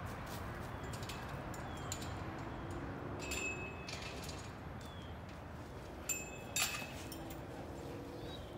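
Metal chain-link gate and latch clanking several times as it is worked, some clanks ringing briefly, over a steady outdoor background hum.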